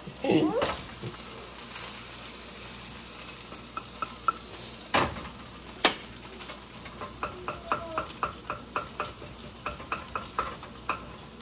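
Metal utensil stirring and scraping in a frying pan over a steady sizzle of frying food. Two sharp clinks come about five and six seconds in, then a run of quick light clinks, two or three a second, in the second half.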